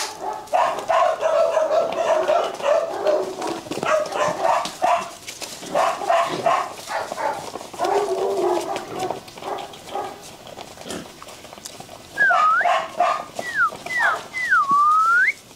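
Rottweiler puppies barking and whining for the first ten seconds or so. Then, over the last few seconds, a person whistles several short swooping notes, each falling then rising, to catch a puppy's attention.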